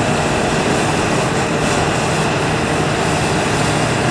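Steady, loud engine drone with no change in level.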